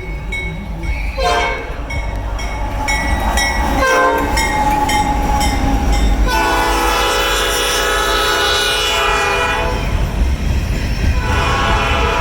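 Nathan multi-chime air horn on a Norfolk Southern AC44C6M diesel locomotive, played as a horn show: two short toots, then a long blast of about three and a half seconds, then another long blast starting near the end. A low rumble from the passing freight train runs underneath.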